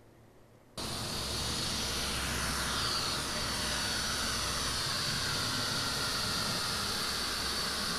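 Small camera quadcopter drone flying, its four propellers giving a steady high whine over a broad hiss, the pitch shifting a little as it manoeuvres. It comes in abruptly about a second in, after near quiet.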